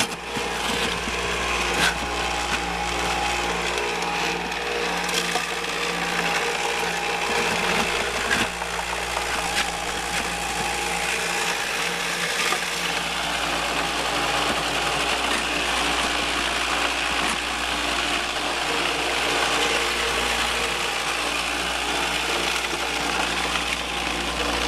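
Homemade gold-prospecting shaker box running steadily: the deck rattling as rocks and gravel shake on its screen, with water from the PVC spray bar washing over it and a low hum underneath. A few sharp clicks stand out, about two seconds in and again around five and eight seconds.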